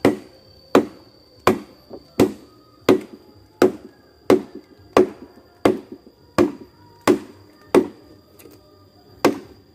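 A machete chopping at a bamboo stalk with a steady run of sharp strikes, about one every three-quarters of a second, with a longer pause before the last blow. A faint steady high tone runs underneath.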